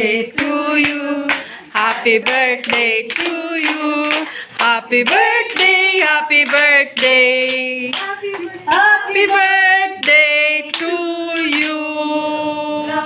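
A group of women singing a birthday song together and clapping along in time, about two claps a second, with the claps thinning out near the end.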